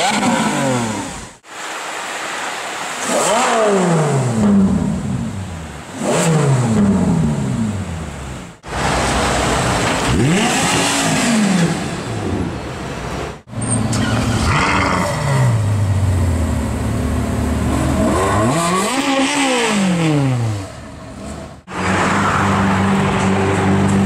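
A run of short supercar clips joined by sudden cuts: a Lamborghini Aventador's V12 and an Audi R8 Spyder's engine among them, each revving up and down and shifting gear as the cars pull away, with the pitch swooping up and falling back several times. Near the end an engine holds a steadier, even note.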